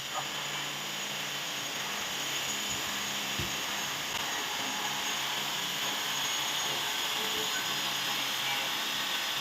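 Steady machine whirr, like a power tool running continuously, with no change in pitch.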